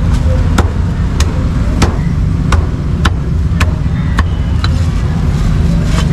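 Heavy cleaver chopping crispy roast pork on a thick round wooden chopping block: about eight sharp chops in a steady rhythm, a little over half a second apart. Under them is a steady low rumble of road traffic.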